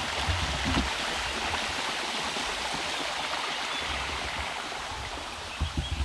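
Small mountain stream rushing steadily over rocks, with a few low thumps near the start and again near the end.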